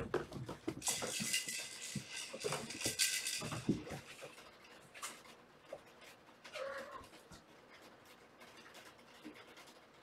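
Kittens zooming and tumbling on a hardwood floor: a quick flurry of paw thumps and scrabbling, with a burst of rustling for about three seconds near the start. After that come a few scattered, fainter thumps as they climb the cat tree.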